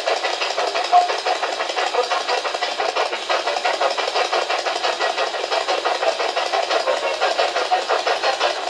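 Spirit box scanning through radio frequencies: steady, rapidly chopping static.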